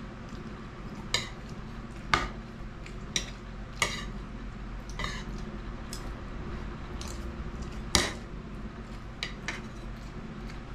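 Metal spoon and fork clinking and scraping against a plate and a stainless steel bowl during a meal: about eight sharp, irregular clinks over a steady low hum.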